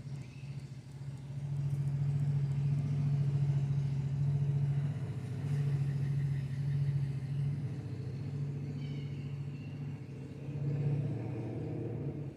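Motorcycle engine running, a steady low drone that swells and eases several times, as if held at varying revs.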